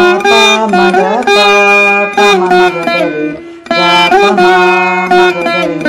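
Saraswati veena playing a phrase of a Carnatic film melody in Shankarabharanam raga: plucked notes with sliding gamakas between them, and a short break about three and a half seconds in before the next phrase.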